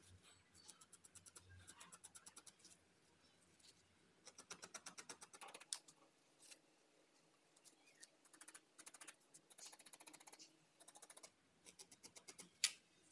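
Felting needle jabbing wool into a foam pad, attaching felt legs and wings: faint runs of quick ticks, several a second, broken by pauses, with one sharper click near the end.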